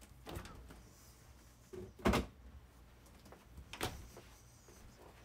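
A few knocks and bumps of things being handled, the loudest a sharp thump about two seconds in.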